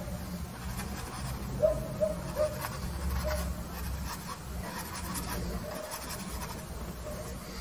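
Paintbrush rubbing and dabbing oil paint onto a stretched canvas: a series of short, soft scratchy strokes.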